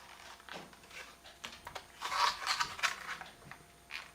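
Thin plastic moulds crinkling and clicking as set plaster figures are pushed out of them, the crackling busiest about halfway through.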